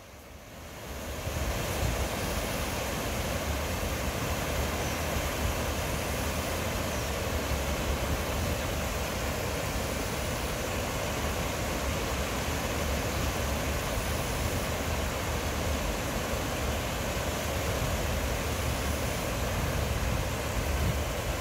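Water pouring over a low concrete weir and rushing through the shallow channel below: a steady rush that rises in over the first second or so, then holds even.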